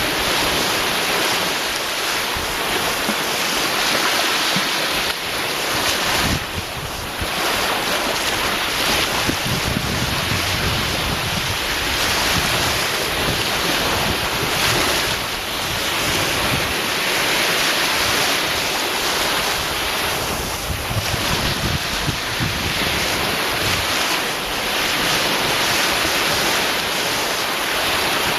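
Ocean waves breaking and washing ashore: a continuous rush that swells and eases every few seconds.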